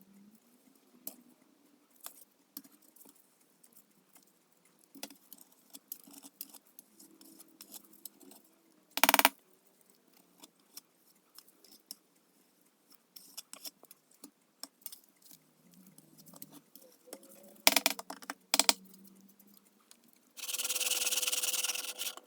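Faint scattered scrapes, taps and clicks of hand work, such as spreading Bondo body filler with a spreader, with a few louder knocks about nine seconds in and again near eighteen seconds. A steady whirring hiss with a held tone starts near the end.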